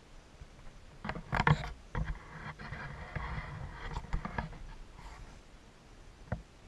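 Rustling and scraping close to the microphone with several sharp knocks, loudest about a second and a half in, and a single click near the end: handling noise on the camera.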